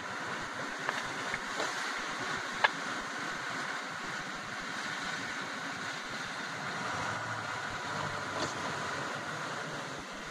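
Steady road noise inside a moving car's cabin: tyres running on a snow- and slush-covered road, with the engine running under it. A few faint clicks, the clearest about two and a half seconds in.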